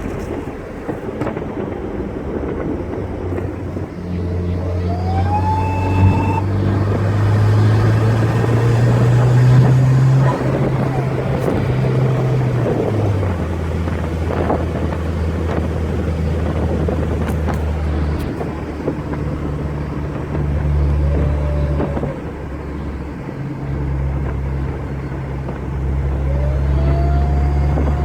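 Turbocharged car engine pulling under load, with the whine of its BorgWarner EFR turbocharger. A thin whine climbs in pitch about five seconds in as the turbo spools up, and shorter whines rise and fall later. The engine note climbs steadily for several seconds, then drops suddenly.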